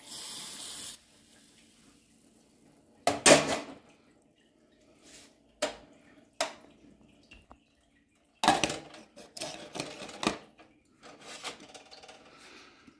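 Dry millet grain poured into a saucepan of boiling water, a rushing hiss lasting about a second. Then a stainless steel saucepan and its glass lid clank and knock several times as the pot is handled, with a few single clicks in between.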